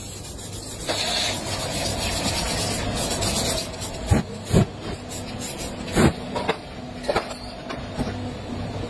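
Aerosol spray-paint can hissing in short bursts, with several sharp knocks in the second half.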